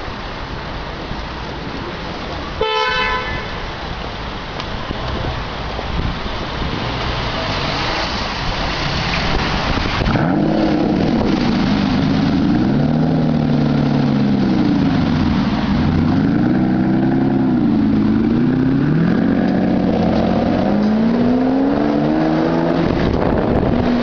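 Aston Martin Vanquish S 5.9-litre V12 starting about ten seconds in, then revved repeatedly, its pitch rising and falling with each blip before settling near the end. Before it, street noise and a brief car-horn toot about three seconds in.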